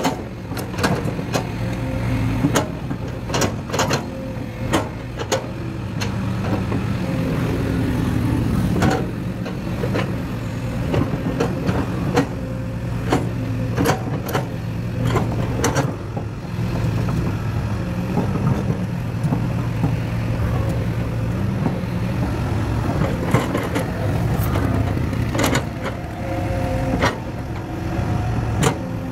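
Kobelco hydraulic excavator's diesel engine running steadily under digging load, its note swelling and easing as the arm works. Repeated sharp knocks and clatters come from the steel bucket scraping and biting into clumpy soil and stones.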